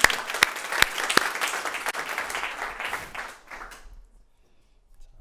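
Audience applauding, with a few sharp, loud claps standing out near the start. The applause dies away about four seconds in.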